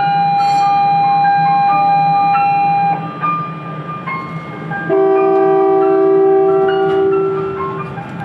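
Electronic departure signal of a cable car: one long held tone for about three seconds, then after a short break a second, lower held chord for about three seconds.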